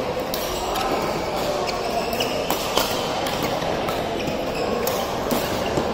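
Badminton rally: sharp racket-on-shuttlecock strikes at irregular intervals, several within a few seconds, over a steady din of play and voices from the surrounding courts.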